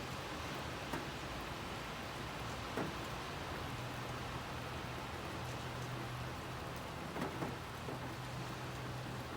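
Steady rain falling, with a few louder single drops tapping on a surface close by, scattered through the stretch. A faint steady low hum runs underneath.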